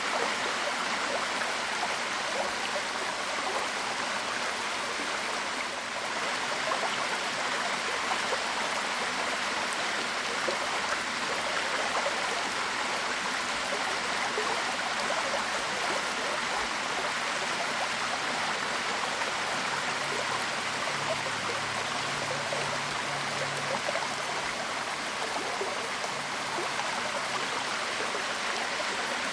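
Waterfall: a steady, even rush of falling water. A faint low hum comes in about two-thirds of the way through and fades a few seconds later.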